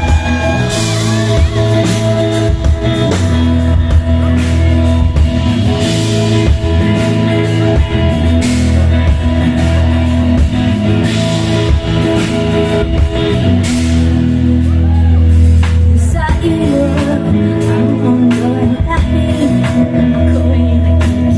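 Live pop-rock band playing a song with singing, heard from the audience in a large hall.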